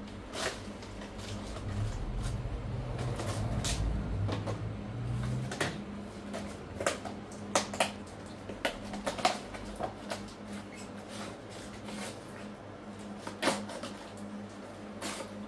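Small cardboard boxes being handled and set down on a metal shop counter: scattered light knocks and taps, with a quick cluster of sharper taps about seven to nine seconds in, over a steady low hum. A low rumble comes and goes in the first five seconds.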